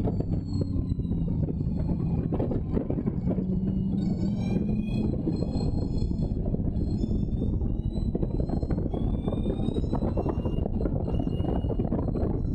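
Allard J2 race car's engine running hard at racing speed, heard from its open cockpit; the engine note climbs over the first few seconds, with wind rushing over the microphone.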